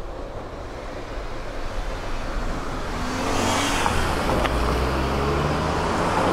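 A car approaching along the road: engine and tyre noise grow steadily louder through the second half.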